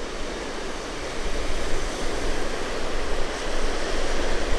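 Rough lake waves washing onto the shore in strong wind, a steady rushing that swells louder about a second and a half in, with wind buffeting the microphone as a low rumble.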